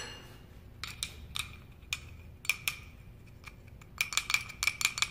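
Forged steel jingle bell shaken so that its 1/4-20 steel nut pellet clinks against the shell, each hit ringing at the same bright pitch. At first there are a few single jingles, then from about four seconds in a quick run of about six jingles a second.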